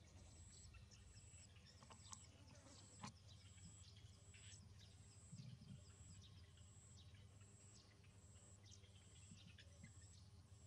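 Near silence: faint outdoor background with a short high chirp repeating steadily every half second or so, scattered brief chirps, and a low hum.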